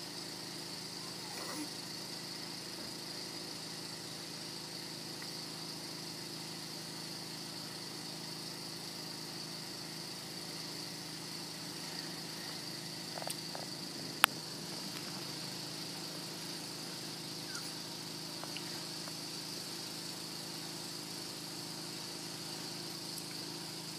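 Steady low hum and hiss of background room noise, with one sharp click about fourteen seconds in.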